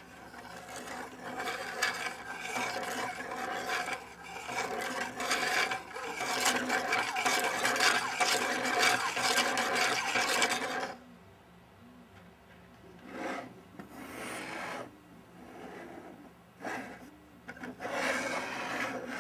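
Hand-cranked 3D-printed Scotch yoke mechanism running: the pin, wheel and slider arm scrape and rub continuously for about eleven seconds. A few shorter, quieter rubbing sounds follow as the model is handled.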